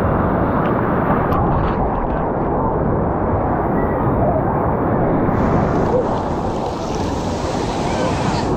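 Wave-pool waves surging and splashing in a steady rush of water noise, with a brighter hissing rush coming in about five seconds in.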